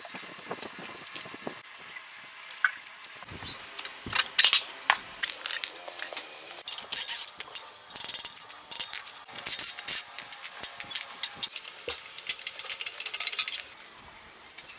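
Hand tools and small metal parts clinking and scraping in a run of sharp clicks, busiest in the middle and easing off near the end.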